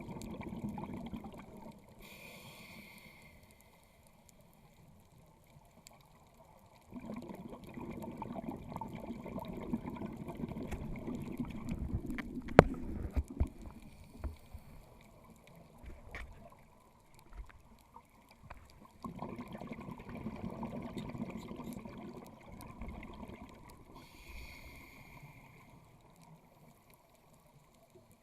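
Scuba diver breathing through a regulator underwater: a brief hiss of an inhale, then a few seconds of low bubbling exhaust from the exhale, heard twice. A single sharp click about halfway through.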